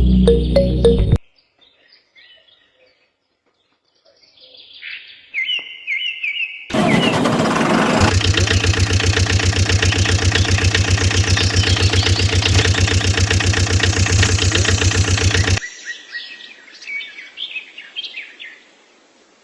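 Birds chirping, broken by about nine seconds of a loud mechanical sound with a fast, even pulse, like a small engine running, which starts suddenly and cuts off suddenly. The chirping carries on faintly afterwards.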